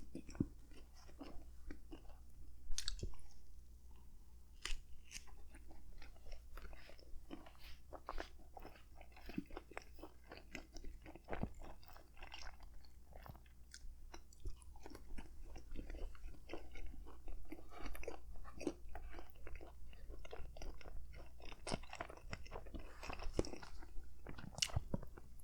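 Close-miked chewing of crusty baguette-style hoagie bread: many irregular small crunches, crackles and wet mouth clicks.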